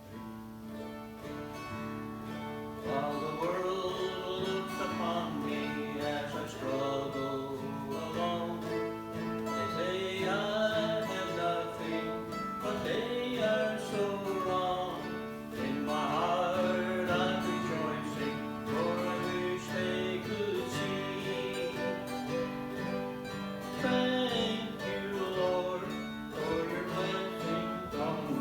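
Acoustic guitar playing steady chords, with a voice singing a slow melody over it from about three seconds in.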